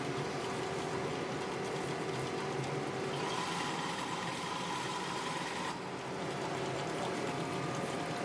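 Winding spindles of a synthetic string machine running, a steady mechanical whirr with a few steady tones; a higher whine joins about three seconds in and drops out near six seconds.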